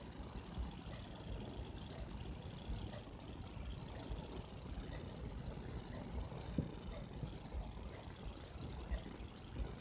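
Low steady background rumble with a faint, even tick about once a second.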